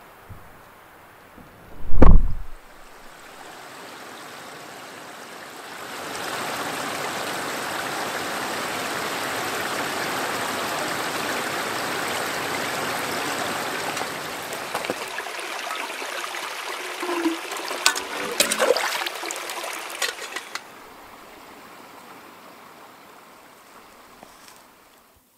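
A loud low thump about two seconds in, then a steady rushing, water-like noise for about nine seconds, which turns rougher with a few clicks and knocks and stops about twenty seconds in.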